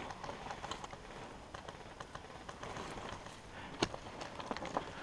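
Soft, irregular footsteps and gear rustle of a player moving, over a steady haze of wind noise on the camera microphone, with one sharper click about four seconds in.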